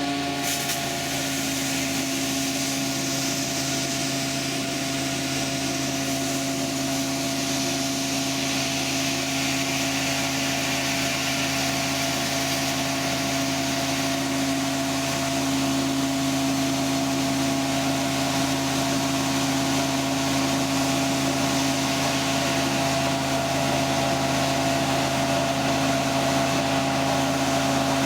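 Drain-cleaning truck's engine and high-pressure jetting pump running steadily, a constant drone with a hiss over it.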